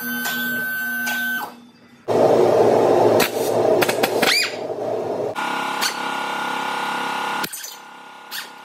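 Pneumatic air hammer firing against the front suspension parts in loud, rapid hammering from about two seconds in, its sound changing to a steadier, higher buzz about halfway through and dropping off near the end.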